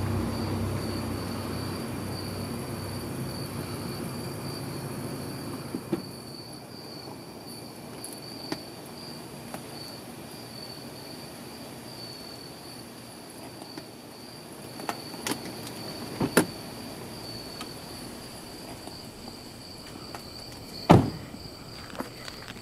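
Crickets chirping steadily, with a few scattered clicks and knocks and a car door shutting with a loud thump near the end. A low music drone fades out in the first few seconds.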